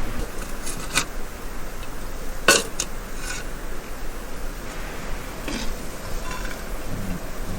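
A few sharp clinks and knocks of dishes and utensils over a steady background noise. The loudest knock comes about two and a half seconds in.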